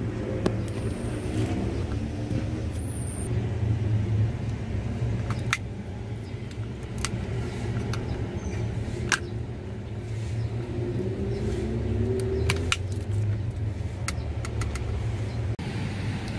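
Mitsubishi Triton's 2.5-litre diesel engine running steadily at idle, with sharp clicks and knocks scattered over it.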